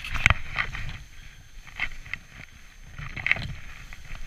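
Skis swishing and scraping over snow during turns, in irregular short strokes, with a sharp knock just after the start and a louder swish about three seconds in.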